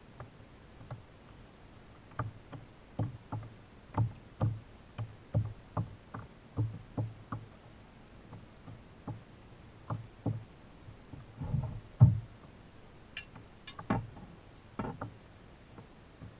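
Small waves slapping against a fishing kayak's hull: a run of irregular, low, hollow knocks, at times a few a second. Near the end come a few sharper clicks.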